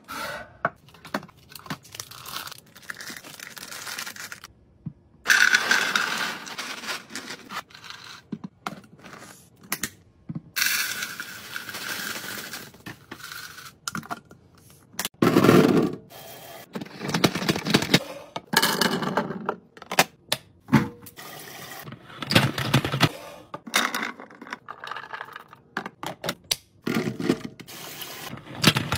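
Groceries being unpacked and put away in a fridge: packaging rustling and tearing, with containers knocking, clicking and scraping in an irregular run of short handling sounds.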